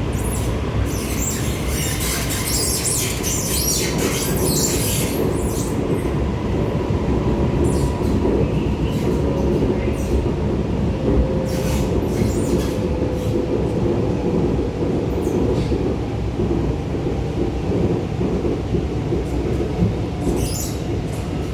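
R151 metro train running, heard from inside the car: a steady low rumble with high-pitched screeching that comes and goes, strongest in the first few seconds, around ten seconds in and near the end.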